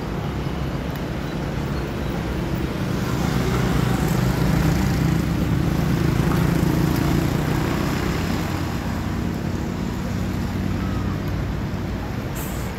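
Road traffic: a passing vehicle's engine and tyre noise swelling to a peak about five seconds in, then fading back to a steady traffic rumble.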